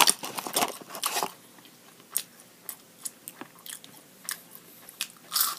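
A person chewing a mouthful of burrito close to the microphone, with wet mouth clicks and smacks. They come thickly in the first second, then sparsely, with a louder mouth sound near the end.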